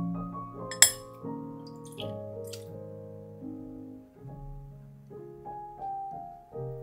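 Gentle piano background music with slow, held notes. A single sharp clink of kitchenware sounds about a second in, with a few faint clinks a little later.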